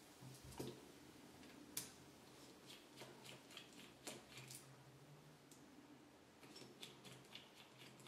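Faint, scattered small clicks and ticks of a precision screwdriver working the tiny screws that hold the tip connections and control board in a TS100 soldering iron's housing.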